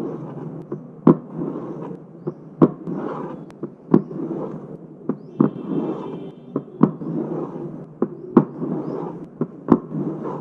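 Heart sounds in mitral stenosis: a sharp, loud click about every second and a half, with softer clicks and a low-pitched, rough, rumbling murmur filling the gaps between beats.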